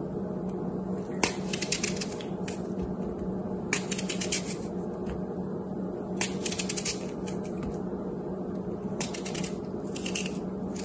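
A knife slicing thin pieces off a red apple held in the hand: about five cuts, each a short run of crisp crunching clicks. A steady low hum runs underneath.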